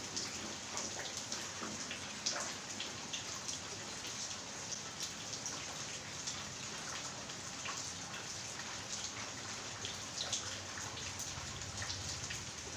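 Rain falling: a steady patter with many scattered sharp ticks of drops landing on wet surfaces.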